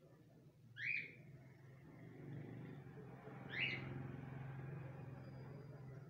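Two short, sharp rising chirps from a caged lutino rosy-faced lovebird, about two and a half seconds apart. A low steady hum builds underneath from about two seconds in.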